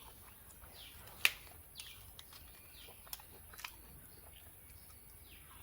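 Quiet eating sounds: scattered soft mouth clicks and chewing, with one sharper click about a second in. A few faint high chirps come and go in the background.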